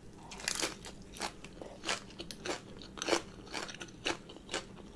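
A person chewing a crunchy mouthful of papaya salad wrapped in a green leaf, close to the microphone: crisp crunches come about twice a second, unevenly spaced.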